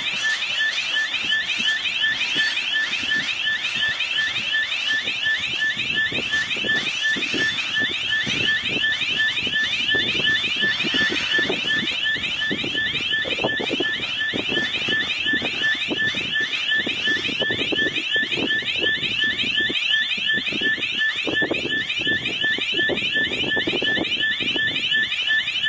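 Railway level-crossing warning alarm sounding without a break: a rapid train of rising electronic chirps over a steady high tone, signalling that a train is still on the crossing section.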